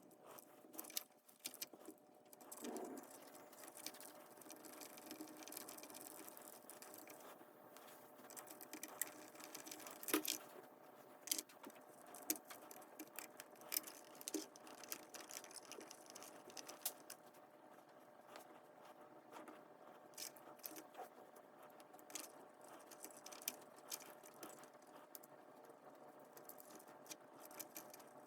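Faint, irregular clicks and light taps of small parts being handled and screwed together: aluminum suspension links and their screws being fitted to an Axial SCX24 mini crawler's axles and chassis.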